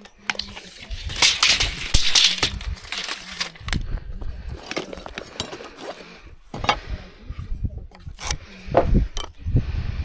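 Timber-frame carpentry work: a string of sharp knocks and metallic clinks, with a spell of hiss about a second in.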